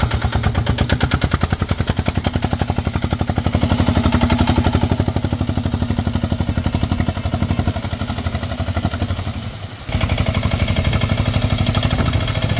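Diesel engine of a homemade Sanedo tractor running under load while it pulls a cultivator through soil, a steady rapid beat of firing strokes. It dips briefly about ten seconds in, then runs on at the same beat.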